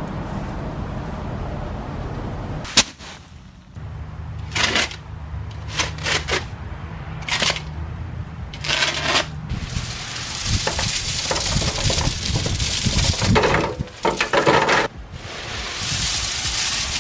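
Bagged landscape rock being poured out of sacks onto a planter bed, rattling and crunching in a series of short bursts and longer pours, with a sharp click about three seconds in.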